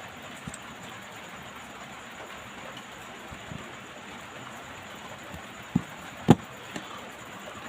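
Steady background hiss, broken about six seconds in by two sharp knocks half a second apart, the second the louder, then a lighter tap: objects being handled or set down on a work surface.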